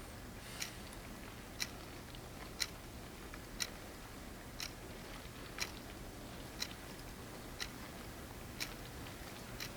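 A clock ticking steadily, one sharp tick about once a second, over a faint low hum of room tone.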